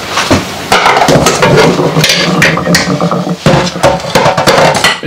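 Kitchen clatter: dishes and utensils knocking at the sink and a spoon scraping and stirring in a metal cooking pot, a dense run of sharp knocks and scrapes.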